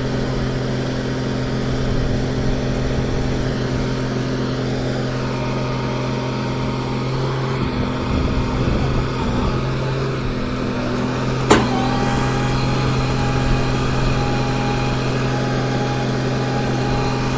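MAIT HR 180 rotary piling rig's diesel engine running steadily with a deep, even hum. A single sharp knock rings out about two-thirds of the way through.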